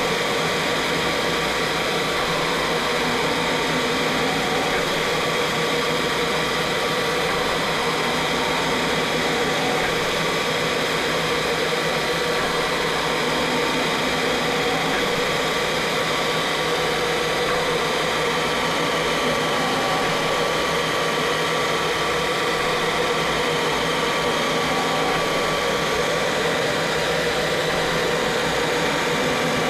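CNC machine running steadily while laser engraving: a constant whir with a few faint steady whines in it.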